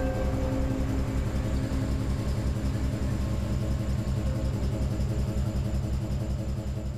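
Engine-like rumble, low and pulsing evenly several times a second, that fades away near the end.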